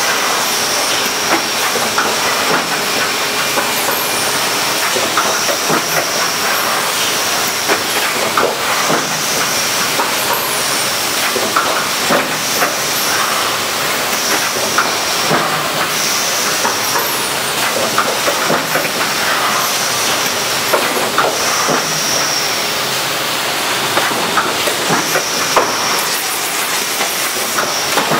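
Packaging machinery running: a steady hiss with frequent clicks and clacks. A short hiss of compressed air comes back every second or two as the pneumatic robot loader picks sealed cups off the conveyor and sets them into cartons.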